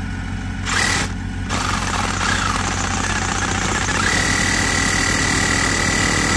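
Cordless reciprocating saw cutting slits into 4-inch PVC well pipe to make a slotted well screen: a short burst about a second in, then a steady cut with a high whine from about four seconds in. Underneath, an engine idles steadily throughout.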